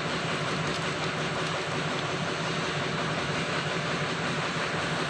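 Excavator's diesel engine idling steadily with an even low hum.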